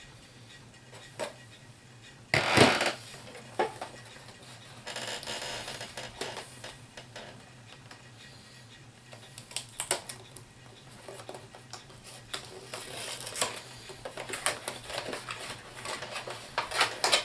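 Hard plastic HeroClix miniatures and their packaging being handled: scattered clicks and clatter, with a short, loud burst of rustling about two and a half seconds in.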